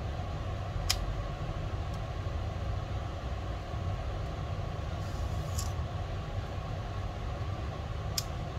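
Steady low background hum, with two sharp clicks, one about a second in and one near the end, from a Sony ZV-1 compact camera being handled and its flip screen moved.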